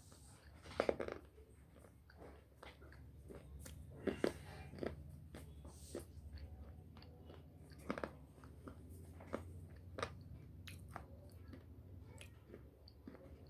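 Slate pencil being bitten and chewed: sharp crunches, the loudest about a second, four seconds and eight seconds in, with softer crunching in between.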